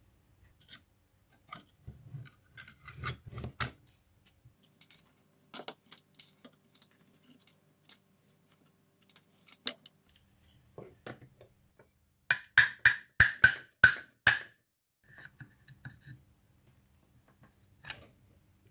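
Hands handling and prising apart a rusty wiper motor's metal gearbox: scattered clicks, knocks and scrapes of tools and parts, with a quick run of about seven sharp taps about two thirds of the way through.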